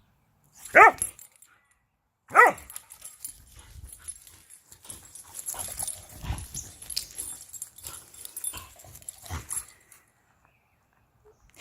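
Whippet barking twice, two short sharp barks about a second and a half apart, followed by several seconds of scuffling and rustling.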